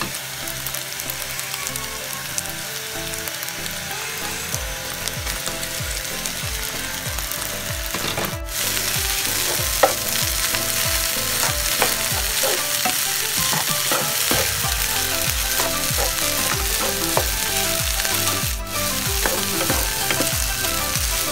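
Egg, shrimp and rice sizzling as they fry in a nonstick pan, with the scrape of a spatula stirring them through. The sizzle gets louder about eight seconds in.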